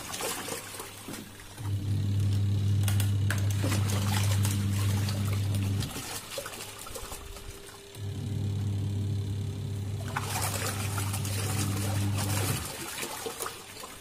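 Sharp twin-tub washing machine agitating a wash load: the motor hums while the pulsator churns soapy water and clothes. It stops for about two seconds at a time and starts again, which is the wash cycle reversing direction. Water sloshes and splashes in the tub throughout.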